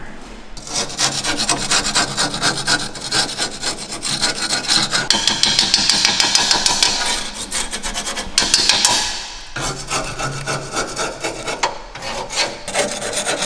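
A steel screwdriver scraping and prodding along a Noble's rusty steel tube chassis, a rapid rasping of metal on flaking rust that is louder in the middle. The scraping knocks off rust scale to see how thin the corroded tubes have become.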